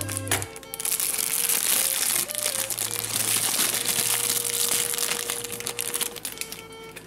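Clear plastic bag crinkling as hands work a plastic model display stand out of it, starting about a second in and dying away near the end, over background music.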